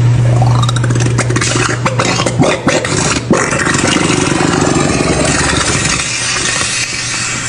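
An engine running, with a rising whine in the first second and a half, then several sharp knocks and clatter about two to three and a half seconds in.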